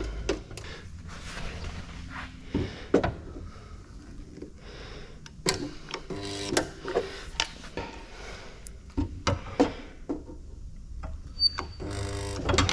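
Scattered clicks, taps and knocks of sheet metal and tools being handled during boot lid spot welding.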